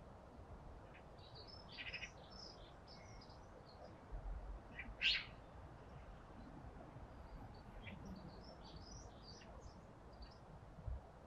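Small birds chirping and singing on and off, with short high notes scattered throughout and one louder call about five seconds in.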